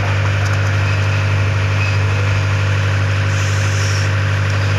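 A steady, unchanging low engine drone, like a motor idling.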